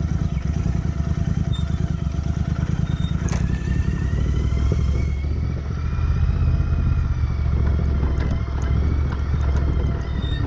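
Royal Enfield Interceptor 650's parallel-twin engine running steadily while the bike rides down a rocky dirt track, with clatter and knocks from the bike going over stones.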